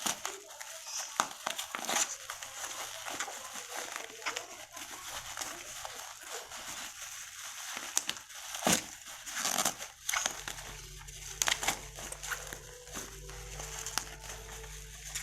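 Plastic packaging crinkling and crackling in irregular handling noises, with sharp clicks and rustles, as a flash drive is unwrapped.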